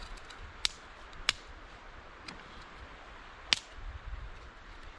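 Small split-kindling campfire crackling, with a handful of sharp, irregular snaps as the wood catches.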